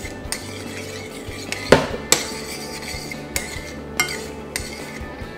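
A metal spoon stirring pasta through sauce in a stainless steel sauté pan, with about five sharp clinks of spoon against pan.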